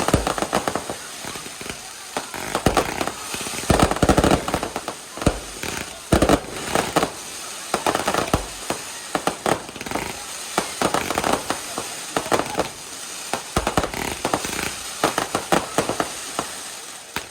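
Fireworks going off in rapid crackling volleys of sharp reports, with heavier clusters of bangs every few seconds.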